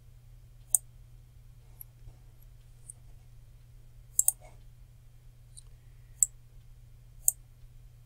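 Computer mouse buttons clicking: sharp single clicks every second or two, with a quick double click about four seconds in, over a low steady hum.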